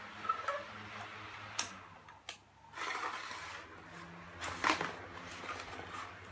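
Close handling noise: a few clicks and knocks with rustling and scraping rubs against the phone's microphone, the loudest rub about two-thirds of the way in, over a low steady hum.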